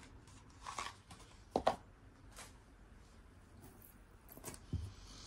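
A few soft clicks and rustles of jewelry being handled, such as a chain necklace being picked up, with the sharpest click about one and a half seconds in.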